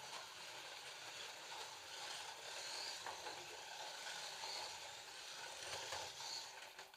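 Scalextric slot cars' small electric motors whining as they run laps on the track, the pitch rising and falling with the throttle. The whine drops away suddenly near the end.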